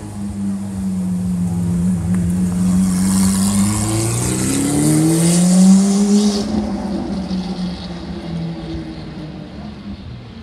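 Lamborghini Aventador's V12 engine running at low revs, then accelerating hard about four seconds in, its note climbing steeply with a raspy exhaust. The sound is loudest about six seconds in and fades as the car pulls away.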